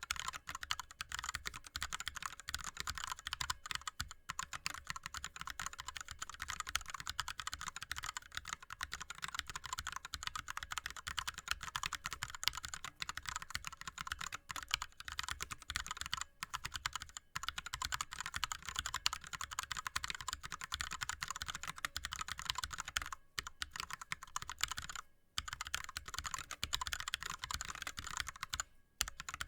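ErgoDox mechanical keyboard with linear Cherry MX Red switches and blank DSA keycaps being typed on fast and continuously, a dense stream of key clicks, broken by a few brief pauses late on.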